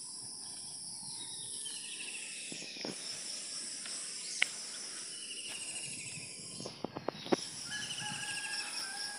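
Steady high-pitched insect chorus, with short pulsed chirping trills repeating every couple of seconds, and a few sharp clicks about four and seven seconds in.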